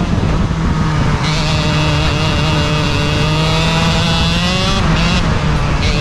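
Racing kart engine running flat out on track: its pitch drops at the start as the kart slows for a corner, then climbs as it accelerates. The pitch dips briefly near five seconds and rises again.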